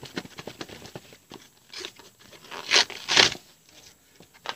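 Cardboard and paper packaging being handled and pulled open: a run of rustles and small clicks, then two louder tearing rasps just under three seconds in, and a sharp click near the end.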